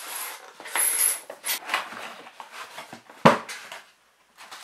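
Cardboard packaging being handled: a box sliding out of its sleeve and its lid being opened, with scraping and rustling and one sharp knock a little over three seconds in.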